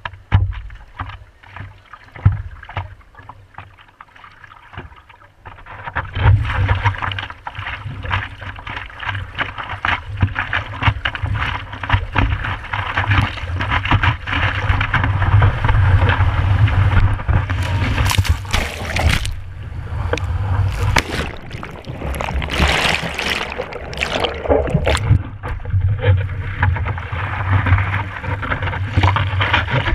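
A surfer paddling a longboard through the sea: hands stroking the water and sea water splashing and rushing past a camera on the board's nose. It is fairly quiet with scattered splashes at first, then turns to a loud continuous rush about six seconds in, with heavier splashes in the second half.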